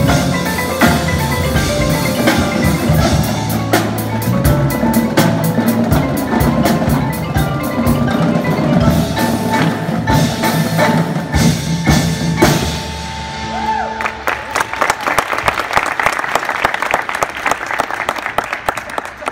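High school indoor percussion ensemble playing: marimbas and other mallet percussion over bass notes and drums. About two-thirds of the way in the low end drops away and a fast, dense run of strokes builds toward the end.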